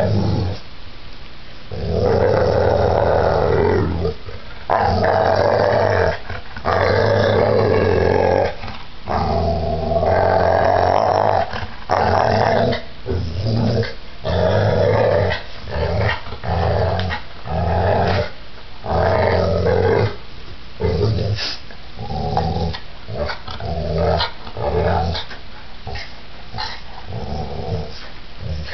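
Pit bull growling in play while mouthing a person's bare feet: long, drawn-out growls for the first ten seconds or so, then shorter growls about once a second.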